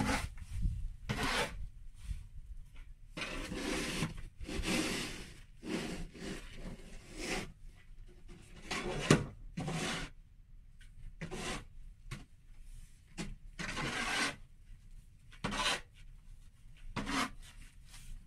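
Irregular rasping scrapes in snow: about a dozen strokes of half a second to a second each, with pauses between them, the sharpest about nine seconds in.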